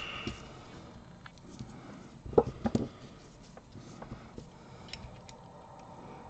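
Light clicks and taps of small tools and wires being handled while wires are desoldered from a game controller's circuit board, with a short cluster of sharper taps about two and a half seconds in.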